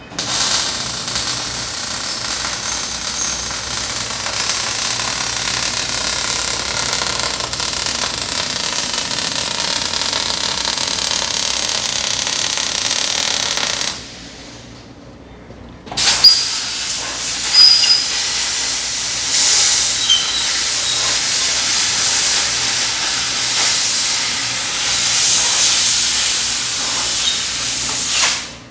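Welding arc sizzling and crackling as the body of a rebuilt shock absorber is welded shut. It runs in two stretches, about fourteen seconds and then about twelve, with a short break between them and a few louder pops in the second.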